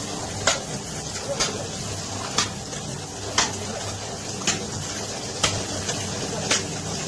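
Sharp knocks or taps, about one a second, over a steady background hiss.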